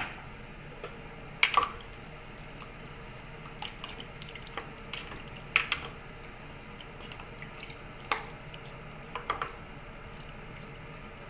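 Black plastic spatula stirring pork pieces in water in a stainless steel pot: liquid sloshing, with a few sharp knocks of the spatula against the pot, over a steady low hiss.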